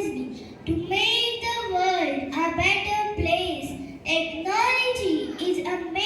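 Children's voices singing, in held, gliding phrases of about a second each.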